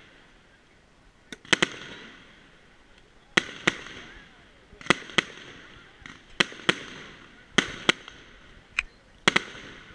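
Aerial firework shells bursting overhead in a fireworks display: about a dozen sharp bangs, often in close pairs a fraction of a second apart, each trailing off in a short fading tail.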